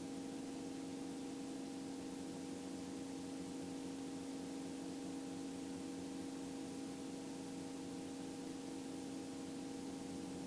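Faint steady electrical hum with a few steady tones and hiss on the helicopter's intercom and radio audio feed, with no transmission coming through.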